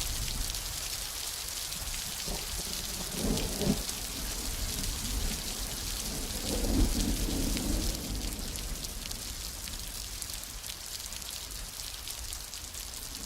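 Steady rain hiss with low thunder rumbling underneath, swelling twice, about three seconds in and again around seven seconds, then easing off.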